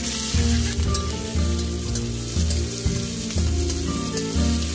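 Sliced onions sizzling in hot oil in a wok over a wood fire, with a metal ladle stirring and scraping them around the pan. A steady low beat of background music runs underneath.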